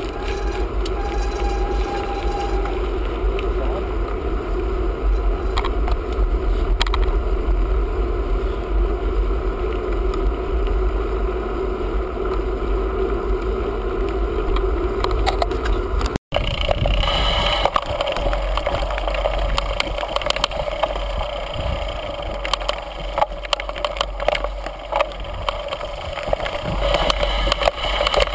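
Mountain bike ride heard from a bike-mounted camera: wind rumbling on the microphone and tyres rolling steadily on a paved road. After an abrupt cut about halfway through, it gives way to rattling and knocking as the bike rolls over a rocky forest trail.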